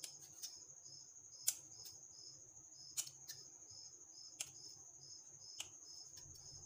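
Knife blade tapping down on a cutting board as a log of mashed-potato mixture is sliced into one-inch pieces: a string of short sharp knocks, the sharpest about a second and a half in. A faint, steady high chirping, about three pulses a second, runs underneath.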